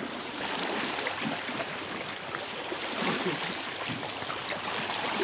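Sea water washing and lapping over the rocks at the shoreline, a steady rushing with no break.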